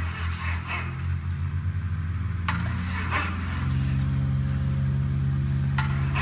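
An engine running steadily at idle, a low, even hum that settles about halfway through, with two sharp clicks over it.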